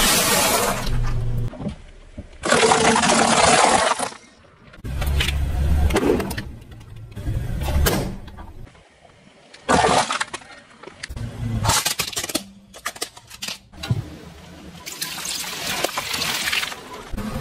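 A car's tyres rolling over and crushing objects: sharp cracks and crunches with longer hissing, spraying bursts, over the low running of the car's engine.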